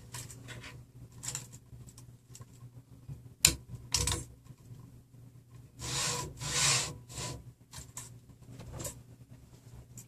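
Linear bearings being pushed into a 3D printer's X carriage on steel smooth rods, heard as scattered clicks and knocks. There is a sharp click about three and a half seconds in and two short rubbing scrapes around six to seven seconds in.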